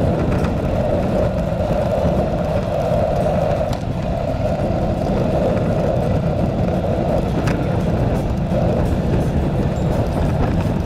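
Steady wind rumble on the microphone with road noise from riding along a paved path.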